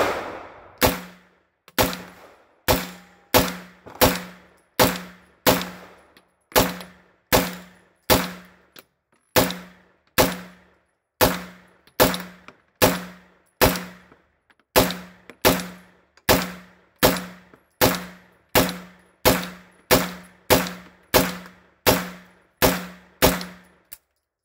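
PTR 9CT, a 9mm MP5-clone pistol, firing a steady string of about thirty single shots, a little over one a second, each with a short ringing tail, stopping shortly before the end. The gun cycles every round with no failures to eject.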